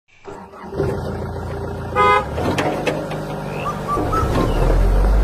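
A vehicle horn toots once, briefly, about two seconds in, over a motor running steadily; the low rumble of the motor grows louder near the end.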